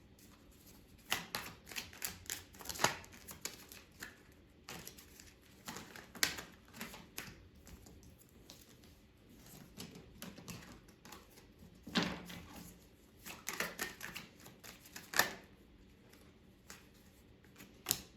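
A deck of tarot cards being shuffled and handled: irregular flurries of crisp card clicks and snaps, with short lulls between them.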